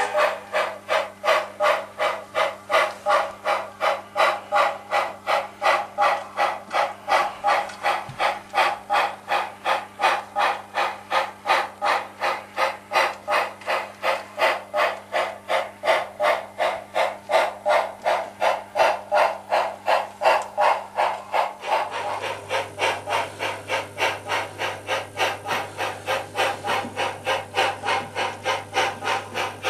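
Sound-equipped HO-scale 0-8-0 steam locomotive model giving a steady run of exhaust chuffs, a little over two a second, over a low electrical hum. About 22 seconds in the chuffs soften slightly and the hum changes.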